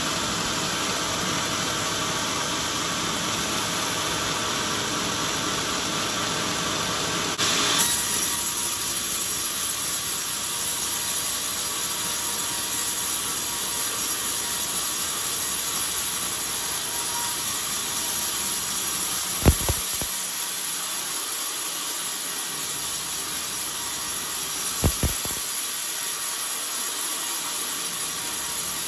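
Band sawmill blade ripping through a beam of old, very hard coconut timber: a steady rushing sound. About seven and a half seconds in it turns brighter and thinner, with a faint steady whine. Two sharp knocks come later on.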